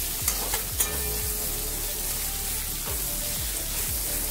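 Sliced onions sizzling in hot mustard oil in a metal kadai, stirred with a metal spatula that clicks and scrapes against the pan, a few sharp taps in the first second. The onions are being fried until they turn golden.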